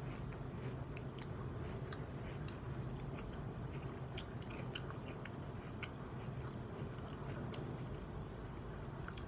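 Close-up chewing with small wet mouth clicks as watermelon is eaten, over a steady hiss of heavy rain pouring outside.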